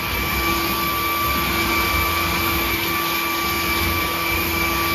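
Hart 20V cordless stick vacuum with a brushless motor running steadily while vacuuming a hardwood floor. A steady motor whine sits over the rush of suction air.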